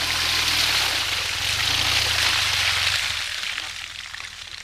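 Muddy water splashing and spraying as a BMW GS adventure motorcycle churns through a flooded mud rut, with its engine running low underneath. The splashing fades about three seconds in.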